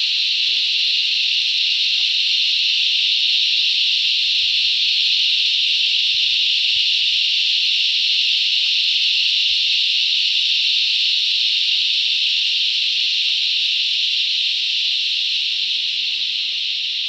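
A chorus of cicadas: a dense, steady, high-pitched drone, deafening, that eases off slightly near the end.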